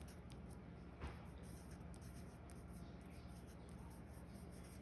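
Faint scratching of writing on a sheet of paper, with a light tap about a second in.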